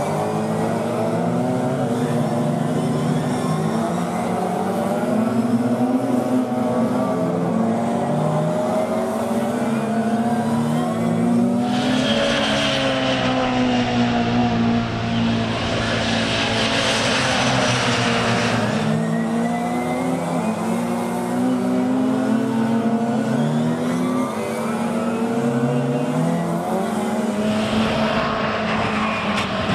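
Classic Mini race cars' small four-cylinder engines running hard as a pack goes by, several engine notes overlapping and repeatedly rising and falling in pitch through revving and gear changes. A louder rushing stretch comes in the middle and again near the end.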